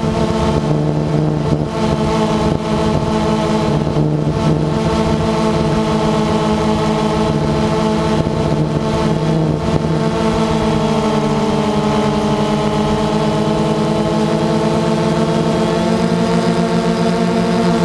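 DJI Phantom 2 quadcopter's propellers and electric motors whining steadily in flight, the pitch sagging slightly and recovering about halfway through.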